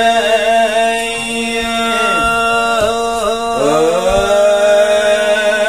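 A man's voice singing a long, ornamented selawat dulang vocal line without tray percussion, the pitch bending and sliding on held notes, with a rising slide about three and a half seconds in. A steady low note is held beneath it.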